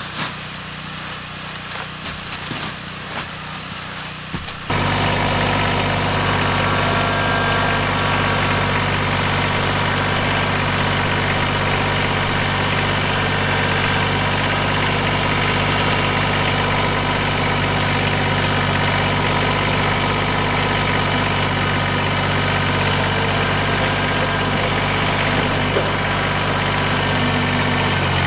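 Kubota BX2380 compact tractor's three-cylinder diesel engine idling steadily. It is faint at first, then suddenly much louder and closer from about five seconds in.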